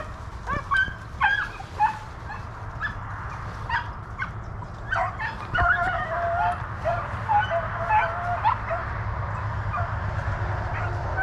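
A pack of rabbit hounds baying and yelping in short, repeated calls, some drawn out, as they run a rabbit's trail. The calls come thickest from about five seconds in, then thin out, over a steady low rumble.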